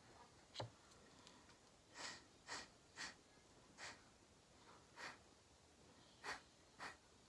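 Short puffs of breath blown through a drinking straw onto wet acrylic pour paint, about eight puffs spaced half a second to a second apart.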